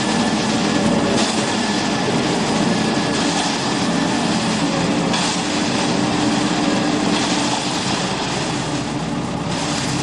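Self-loading concrete mixer running with its drum turning: a steady, loud mechanical clatter over an even engine hum.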